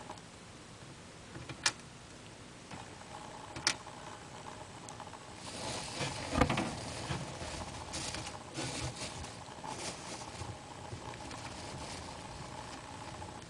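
Dry hay and wood-shaving bedding rustling and crackling as a hand and a hamster move through it, starting about five seconds in and strongest around six seconds. Before that come two sharp clicks.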